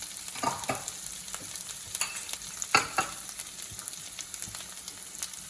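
Onions and ginger-garlic paste frying in a little oil in a pan, with chilli powder and turmeric just added: a steady sizzle, and a spoon scraping and clinking against the pan a few times as it is stirred.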